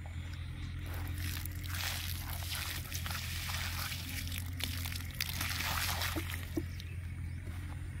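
Water poured from a plastic bottle splashing and trickling onto dry ground and a turtle's shell, fading out about six and a half seconds in, over a steady low hum.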